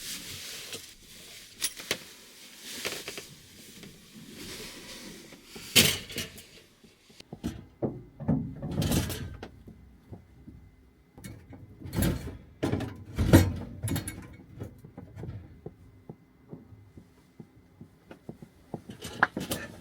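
Objects being handled in a small enclosed space: a scatter of knocks, thuds and clicks, a couple of them heavier thumps in the second half.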